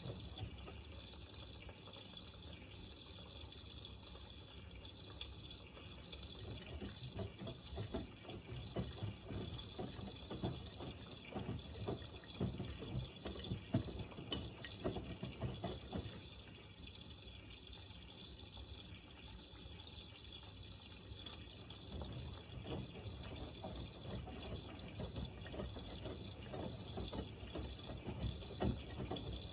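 Miele W3985 front-loading washing machine in its main wash: water sloshing as the drum tumbles the laundry, in bouts of several seconds with quieter pauses between them, over a steady faint high whine.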